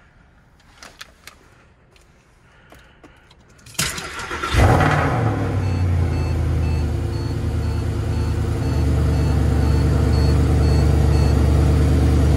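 Mercedes-Benz SLS AMG's 6.2-litre V8 cold-starting, heard from inside the cabin. After a few faint clicks, the starter cranks briefly about four seconds in and the engine catches with a loud flare, then settles into a steady idle. A short repeating beep sounds over the idle for several seconds.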